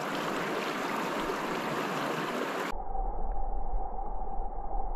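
River water rushing steadily; about two and a half seconds in it cuts abruptly to the muffled low rumble of the river heard underwater, with a faint steady hum.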